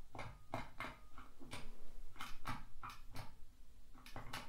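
Foot pedal switch of a Sunkko 788H battery spot welder being pressed and released repeatedly: about a dozen irregular clicks and light knocks, with no weld discharge, over a faint low hum.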